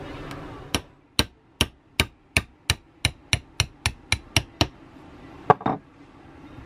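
A hammer tapping a pin punch, about three blows a second for some four seconds, driving the pressed-in main jet out of the bowl stem of a Kohler K181 8-hp carburetor clamped in a vise. A sharper, ringing metal clink follows about a second later.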